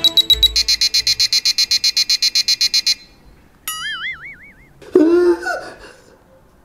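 Countdown beeping from a prop time bomb: rapid electronic beeps, about eight a second, that stop about three seconds in with no explosion. A short wobbling, warbling tone follows, then a brief vocal cry.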